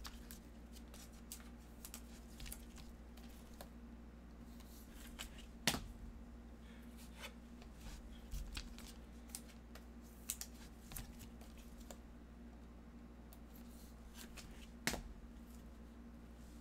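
Glossy Prizm basketball trading cards handled by gloved hands: soft clicks and rustles as the cards slide against one another while being sorted, with two sharper clicks, one about six seconds in and one near fifteen seconds.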